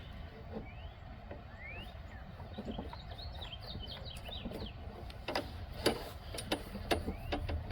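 Small birds chirping, short rising calls and a quick cluster of high twitters, over a low background hum. Sharp clicks and taps come in the second half, the loudest about six seconds in, as pliers work the plastic tabs holding the mower's drive cable.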